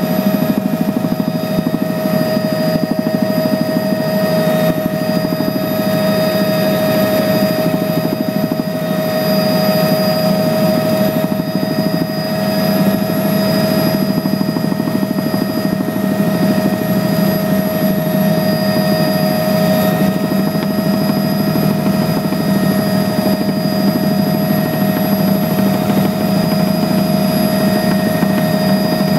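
Steady drone of a small aircraft in flight heard from inside the cabin: engine and blade noise with a fast pulsing beat low down and a steady whine above it.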